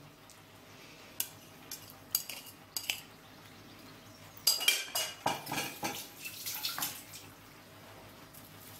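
A utensil clinking and scraping against a bowl as leftover marinade is scraped out onto raw chicken, in scattered short strokes with a busier run of clinks about halfway through.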